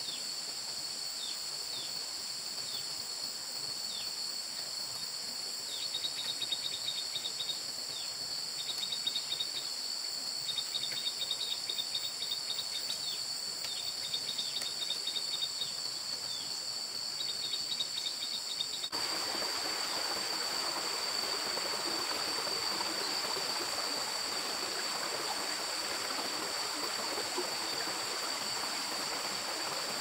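Forest ambience: a steady high-pitched insect drone throughout, with short bird chirps and rapid trills over the first two-thirds. A little past halfway the sound changes abruptly, and a steady rushing noise joins under the insects.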